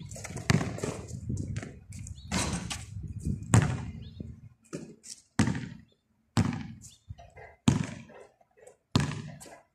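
Basketball bouncing on a concrete court: a series of sharp thuds, roughly one a second, the loudest about three and a half seconds in.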